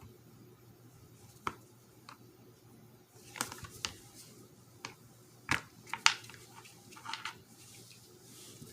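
Scattered sharp clicks and light knocks of tools and small parts being handled while a car's manual shifter assembly is taken apart, the loudest click about six seconds in.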